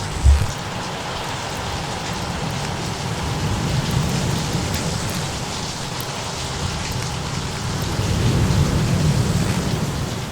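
Steady rain with low rolling thunder that swells twice, a little before halfway and again near the end, and a brief deep thump just after the start. Small crackles sit on top of the noise.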